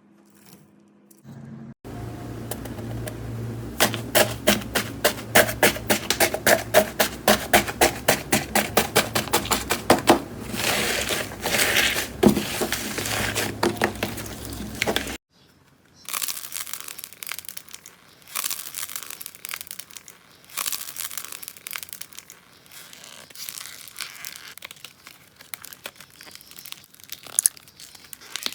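Slime being squeezed and worked in the hands, giving rapid sticky clicks and pops over a low hum. It cuts off just after the middle and is followed by softer bursts of crackling and crinkling.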